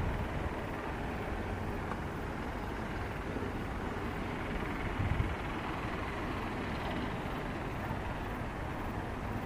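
Wind buffeting the microphone over a steady hiss of open-air ambience, with a stronger gust about five seconds in.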